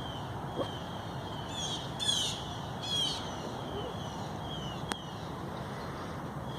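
Birds calling outdoors: three loud, harsh calls close together between one and a half and three seconds in, over thin chirps repeating about once a second and a steady background hum.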